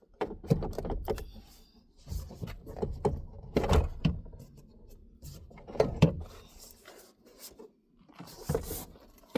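Plastic car door trim panel being pried loose and handled, with irregular knocks, clunks and rattles and a short plastic scrape near the end.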